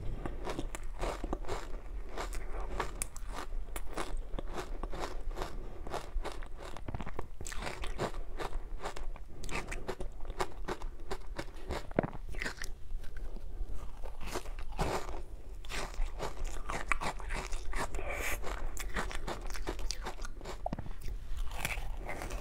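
Close-up chewing of soft, powdery ice coated in matcha powder: a dense, unbroken run of crisp crunches as the mouthful is bitten and ground down.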